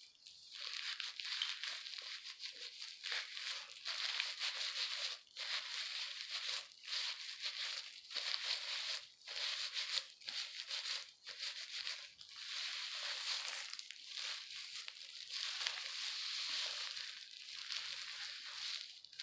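Plastic-gloved hands rubbing and squishing hair dye through dye-coated hair close to the microphone: a crinkling, rubbing noise that stops and starts many times.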